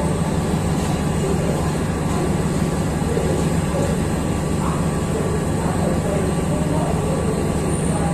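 Steady heavy drone of the diesel generator sets in an Indian Railways LHB luggage, brake and generator car as it moves slowly past at the tail of an express train.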